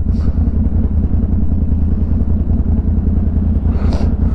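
ATV engine running steadily under way, with two short bursts of noise, one at the start and one near the end.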